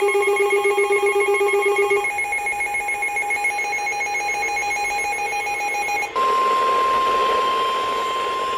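Electronic weather alert alarm: a rapidly pulsing multi-tone alarm that shifts pitch about two seconds in. About six seconds in it gives way to NOAA Weather Radio's steady single-pitch 1050 Hz warning alert tone, which signals that a warning message follows.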